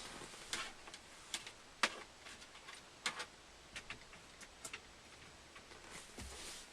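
Equipment being handled: about a dozen irregular light clicks and knocks, a few close together, over a faint steady hiss.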